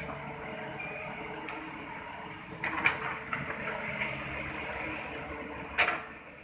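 A small motor whirring steadily with a hiss, and a sharp knock about three seconds in and another near the end.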